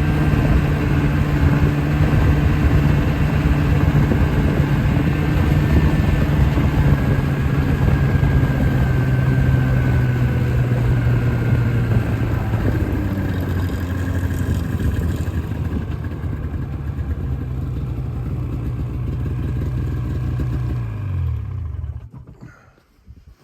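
A vehicle engine running steadily and loudly, then switched off about 21 seconds in, its pitch dropping as it winds down to a stop.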